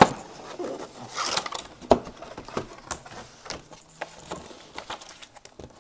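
Cardboard box being handled and opened by hand: scattered light clicks, scrapes and rustles of the cardboard lid, with a sharper knock about two seconds in.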